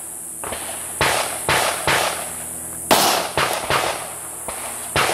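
Pistol gunfire: a series of about seven sharp shots at irregular intervals, the loudest about three seconds in.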